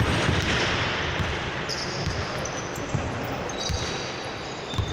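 Basketball bouncing on an indoor court during play, with short high squeaks.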